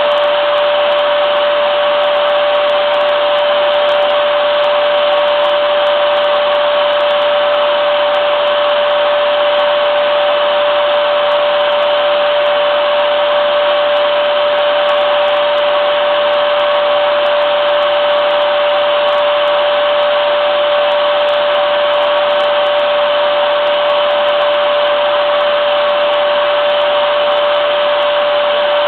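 Vacuum cleaner motor running steadily, a constant whooshing hum with a high whine.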